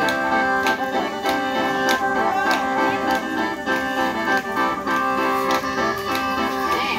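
Khaen, the Isan bamboo free-reed mouth organ, playing a continuous melody over a sustained drone, with a regular beat of sharp strikes about every two-thirds of a second.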